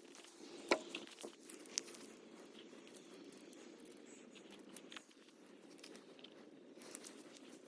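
Faint scattered clicks and crunches, a few sharp ones standing out near the start and near the end, over a low steady background hum.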